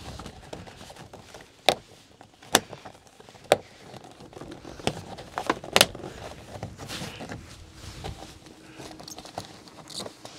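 Plastic rain gutter sections being handled and snapped together overhead: several sharp clicks and knocks, the four loudest spread over the first six seconds, with quieter rattling and scraping between.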